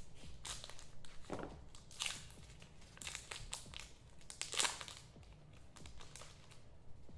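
Trading card pack wrapper crinkling and tearing as it is opened by hand, in irregular crackly bursts, loudest about two seconds in and again past four and a half seconds.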